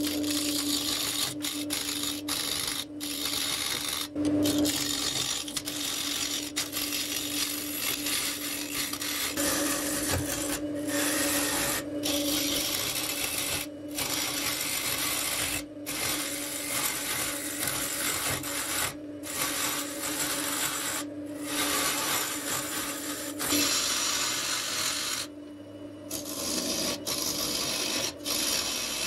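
Gouge cutting a spinning wood blank on a lathe: a steady hiss of wood being shaved over the lathe's steady hum, broken several times by brief gaps where the cut stops.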